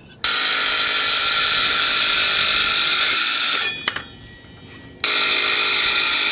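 Milwaukee M18 cordless circular saw with a carbide blade cutting through a metal plate. A loud, steady, high-pitched whine and screech comes in two cuts, the first about three and a half seconds long and the second starting after a short pause about five seconds in.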